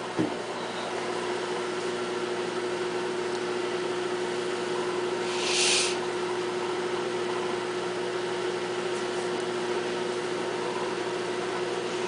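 Sharp Carousel microwave oven running mid-cycle: a steady hum with one constant droning tone. A brief hiss comes about halfway through.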